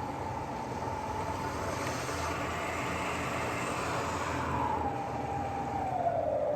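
Clausing 2285 four-spindle drill press running, with a steady mechanical whine over a low hum. The whine climbs in pitch for about the first half, then falls back again, as the spindle speed is raised and lowered.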